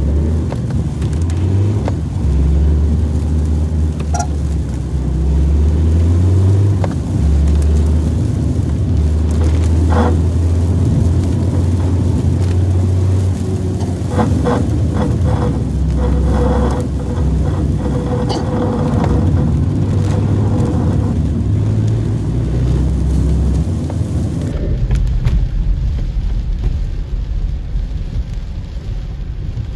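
Car being driven, its engine humming under a low road rumble, the engine pitch stepping up and down as the car speeds up and slows.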